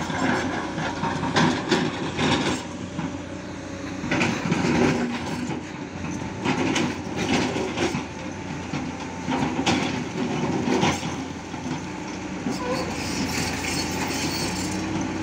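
Hydraulic excavator working: its diesel engine running steadily under load, with irregular clanks and rattles from the bucket as it digs and dumps soil into a dump truck.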